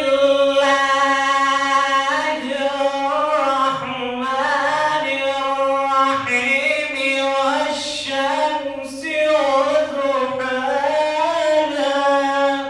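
A man's solo Quran recitation in the melodic tajwid style: one long, unbroken phrase whose pitch bends and ornaments continually, ending near the end.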